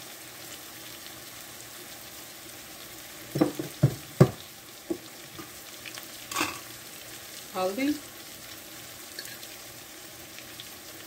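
Chopped onion, tomato and green chilli sizzling steadily in butter and oil in a frying pan. A quick cluster of sharp knocks comes about three to four seconds in, and another click a couple of seconds later.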